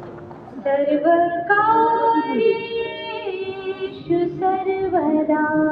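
A woman singing slow, long-held notes that change pitch every second or so, over a steady low held tone.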